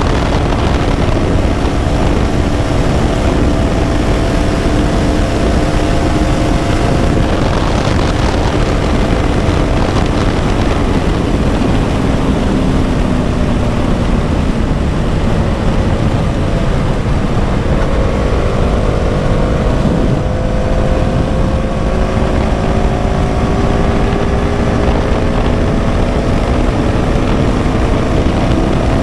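KTM Duke 200's single-cylinder engine running at cruising revs under heavy wind noise on the microphone. The engine note sags a little toward the middle, then climbs slowly through the last part as the revs rise.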